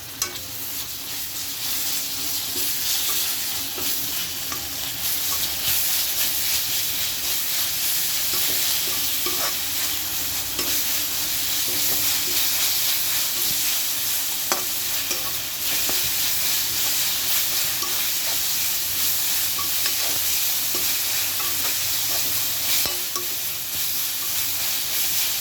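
Onions, curry leaves and freshly added ginger-garlic paste sizzling in hot oil in a kadai while being stirred, a steady hiss with a few light taps now and then.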